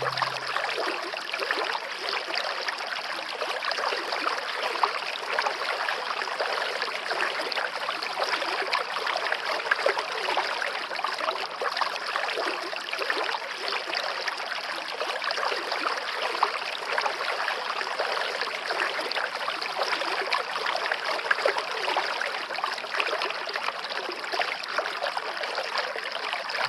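Forest stream running steadily, an even rush of water with fine trickling detail.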